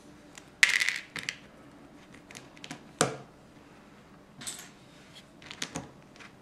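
Small plastic Lego pieces clicking and clattering as hands pick up parts and press tiles onto a baseplate: a short clatter about half a second in, a sharp click about three seconds in, and a few lighter clicks near the end.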